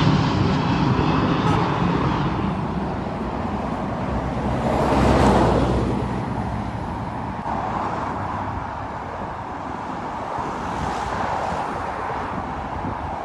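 City street traffic noise, steady, with one vehicle passing louder about five seconds in.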